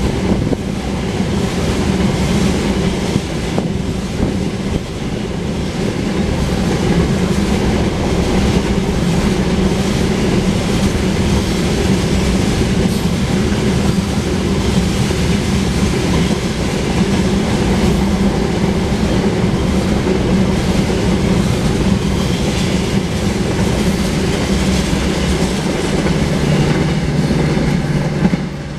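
Loaded tank cars of a long oil train rolling steadily past, with the continuous rumble and clatter of wheels on the rails. The end of the train passes near the end.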